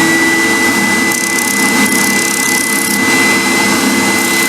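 Electric workshop machine motor running steadily at full speed with a constant high whine over a noisy rush.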